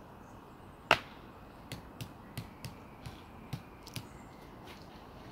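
A sharp click about a second in, followed by about seven lighter clicks and taps spaced irregularly over the next three seconds.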